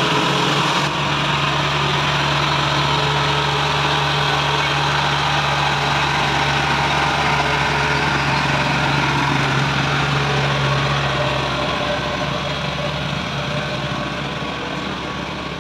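Kubota DC70 Plus combine harvester's diesel engine running steadily as the machine climbs onto a transport truck. A low drone in the engine sound drops away about eleven seconds in.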